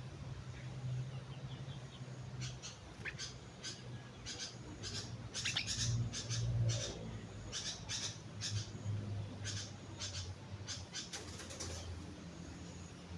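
Sooty-headed bulbul (kutilang) calling: a run of short, sharp chirps, thickest in the middle and thinning out near the end, over a low steady hum.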